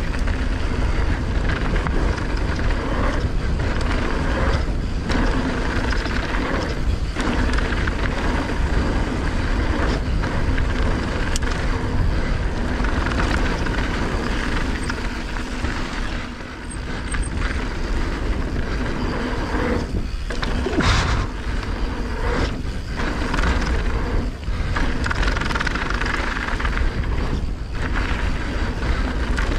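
Mountain bike riding fast down a gravel trail: steady wind rush on the microphone with the knobby tyres rolling and crunching over loose dirt and stones.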